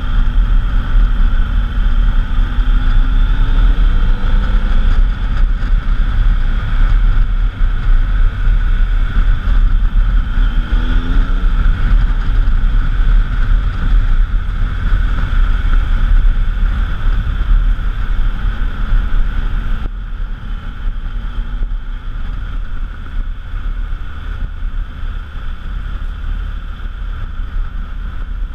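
Triumph Tiger Explorer XC's three-cylinder engine running under way through steady wind rush on the microphone. The engine pitch rises twice, about three seconds in and again about ten seconds in. The sound gets somewhat quieter about twenty seconds in.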